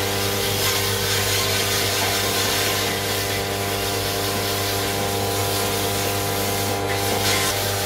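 Steel truck wheel rim spinning on a lathe while an abrasive pad is pressed by hand against it: a steady rubbing hiss of sanding over the lathe motor's even hum.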